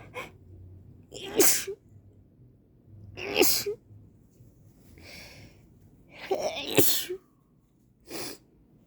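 A woman sneezing again and again in an allergy sneezing fit: three loud sneezes a couple of seconds apart, then a shorter, quieter one near the end.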